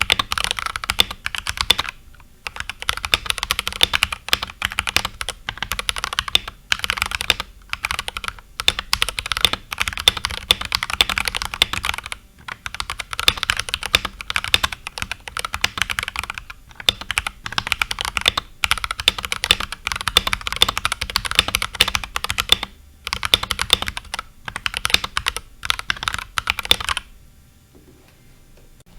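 Akko 3068B mechanical keyboard with Akko Jelly Pink linear switches, in its stock unmodded state, being typed on: fast continuous keystroke clatter with a few short pauses, stopping near the end.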